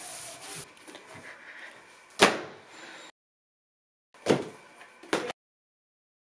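Three dull thumps: one about two seconds in, then two more near the end as heavy hardcover encyclopedia volumes are set down one on top of another on a stack.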